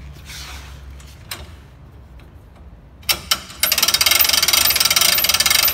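Hand winch cranked in tight, its ratchet pawl clicking rapidly for about three seconds, after a few lighter knocks of handling.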